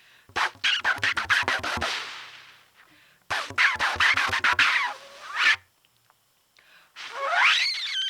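Trumpet played with extended techniques: two bursts of rapid, stuttering, sputtered notes, then a pitched slide rising upward near the end.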